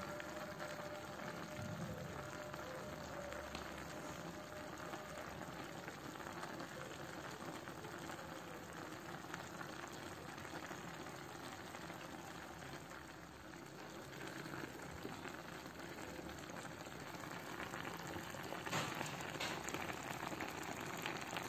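Sauce simmering and sizzling in the base of a clay tagine: a steady bubbling crackle, with a few sharper crackles near the end.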